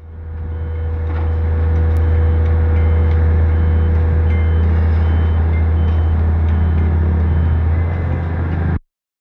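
Watermaster amphibious dredge's engine running steadily with a deep hum, a faint repeating high beep over it. It fades in over the first second and cuts off suddenly near the end.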